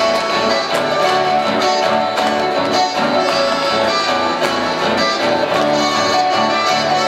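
Live chamamé played by a small band: two button accordions carrying the melody over strummed acoustic guitars and an electric bass, in a steady rhythm.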